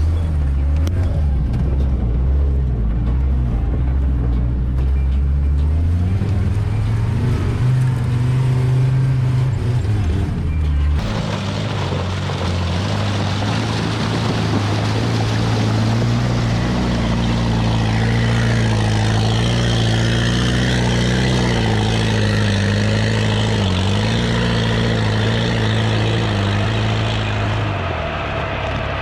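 Off-road vehicle engine running hard under load, its pitch rising about six seconds in; the sound changes abruptly about eleven seconds in and the engine carries on steadily with small dips in pitch.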